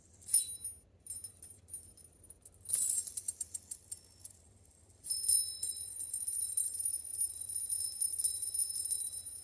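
Stainless steel fidget spinner with loose steel balls: a few sharp metallic clicks and rattles as it is handled, then from about five seconds in a steady high jingling ring as it spins.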